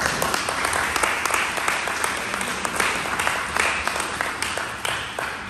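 A large group of people applauding, many hands clapping at once; the applause thins and fades near the end.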